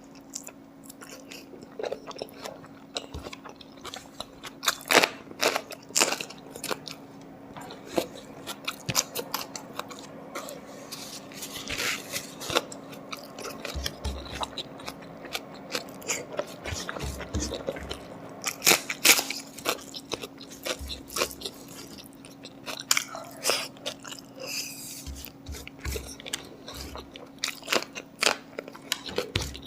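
A person chewing and biting roast pork close to the microphone: irregular crunchy bites and wet chewing. A faint steady hum runs underneath.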